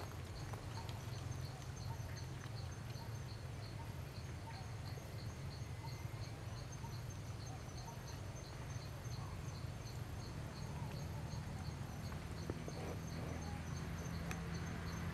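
Insects chirping in a steady, evenly pulsed high rhythm, over a low steady rumble.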